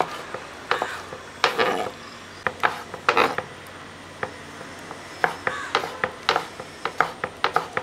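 Kitchen knife chopping raw beef liver into cubes on a wooden cutting board: irregular knocks of the blade on the wood, with a few longer scraping strokes and a short lull about halfway.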